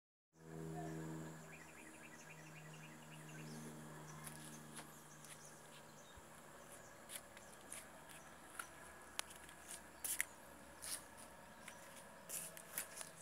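Faint outdoor ambience. A low steady hum lasts for about the first six seconds, and short, high chirps come scattered through the rest.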